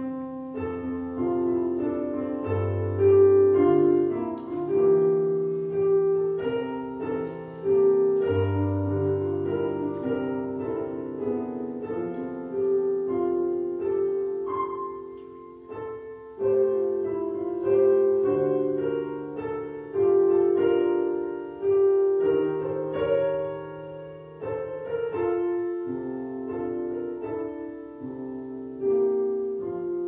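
Solo piano playing a slow piece, with held chords and a new chord struck every second or two.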